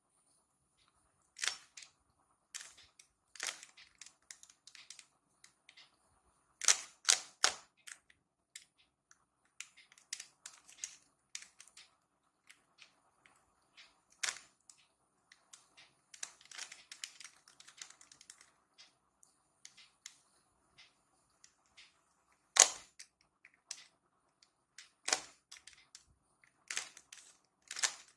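Rubik's cube layers being turned by hand, giving irregular plastic clicks and clacks with short pauses between groups of turns. The cube is being worked to form a cross on one face.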